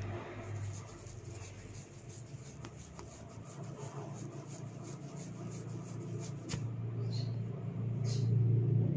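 Hair being rubbed and tugged for hair cracking: a rapid run of faint crackles, then one sharper snap about two-thirds of the way in. Underneath is a low steady hum that grows louder toward the end.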